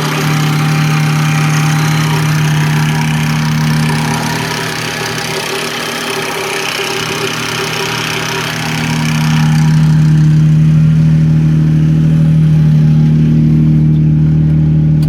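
Lexus SC300's 2JZ-GE straight-six running steadily, a little louder for the last few seconds, then shut off at the very end. It carries a top-end tick that the owner cannot place: typical of noisy lifters, timing out, or a bad timing belt tensioner, with the timing belt visibly loose.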